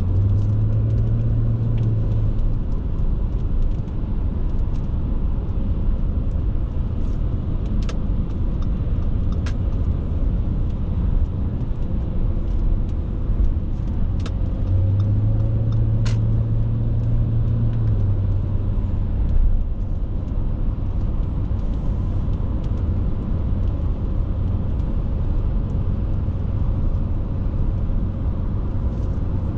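In-cabin noise of a 2008 Audi A6 C6 Avant with the 2.4-litre petrol V6, cruising at motorway speed: a steady low rumble of engine, tyres and road. A low hum swells for a couple of seconds at the start and again about fifteen seconds in.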